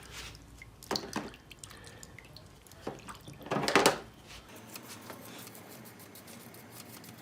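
Water splashing and dripping as the paint-stripped die-cast toy car is rinsed, in a few short splashes with a louder, longer one about three and a half seconds in.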